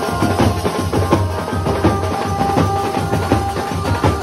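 Indian wedding-band drummers beating large marching bass drums in a fast, dense rhythm, with a melody held over the beat.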